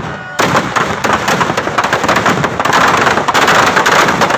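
Firecrackers packed inside a burning Ravana effigy going off in rapid, continuous crackles and bangs. After a brief lull at the start they thicken into a dense, loud barrage about three seconds in.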